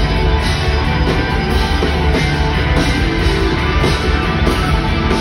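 Live rock band playing an instrumental passage, with electric guitar, keyboards and drum kit, loud and steady.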